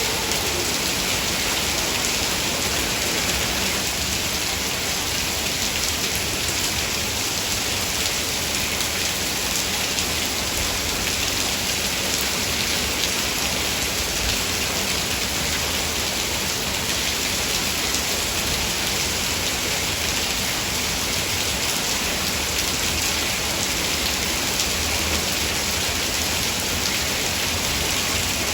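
Heavy, steady rain falling, a dense even hiss with fine patter of drops, with no let-up or change in intensity.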